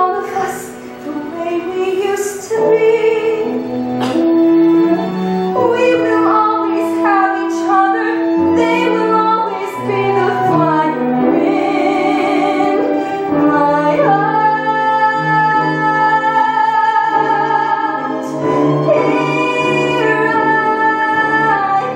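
A woman sings a musical-theatre solo with vibrato over instrumental accompaniment. She holds one long note in the middle of the phrase.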